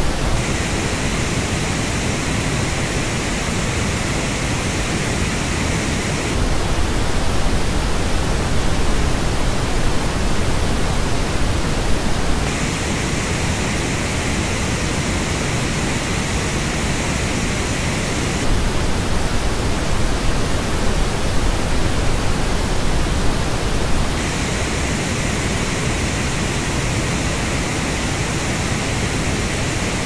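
Steady pink noise switching about every six seconds between the flat reference and a version filtered through the Grado SR80X headphones' measured frequency response. The three headphone-shaped stretches sound brighter and hissier, with extra treble, and alternate with the even, plainer reference noise.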